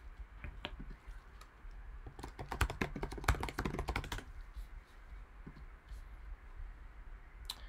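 Typing on a computer keyboard: a quick run of keystrokes lasting about two seconds, starting about two seconds in, with a few single clicks before it and near the end.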